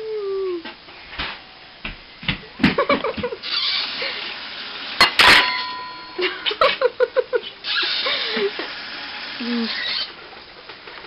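Someone chewing and crunching a hard dog treat, with short bursts of voice between the bites and a sharp clatter about five seconds in.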